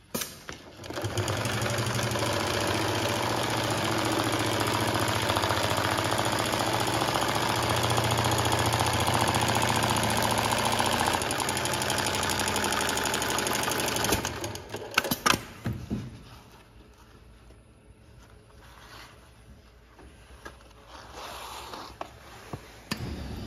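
Industrial lockstitch sewing machine head (M-Type 867 Classic) on an automatic awning sewing table, stitching a hem in awning fabric at a steady high speed with a fast, even needle rhythm. It comes up to speed about a second in and stops about 14 seconds in, followed by a few sharp clicks.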